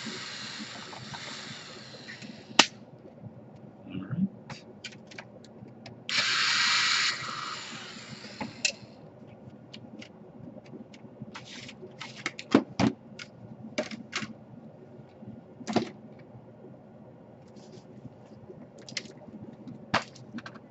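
Scattered sharp clicks and taps of small parts and tools handled during laptop disassembly. There are two spells of steady hiss: the first stops with a click about two and a half seconds in, and the second, louder one runs from about six to nine seconds in.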